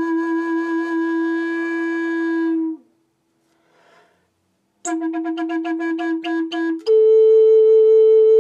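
Long wooden end-blown flute in A played slowly: a held low note that sags in pitch as it ends, a pause of about two seconds, then the same note broken into quick pulses, and a step up to a higher held note near the end.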